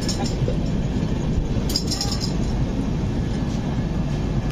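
Passenger train coach running through a station, heard at its open door: a steady rumble of wheels on the rails, with a few light clinks near the start and about two seconds in.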